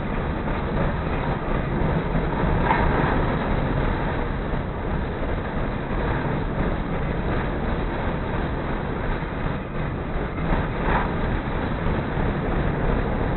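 CTA 2400-series rapid-transit train running along the line: a steady rumble of wheels on rail, with a couple of brief sharper sounds about three seconds in and near the end.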